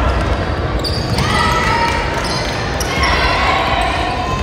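A basketball being dribbled on a hardwood gym floor during play, with voices echoing in the large hall over a steady low rumble.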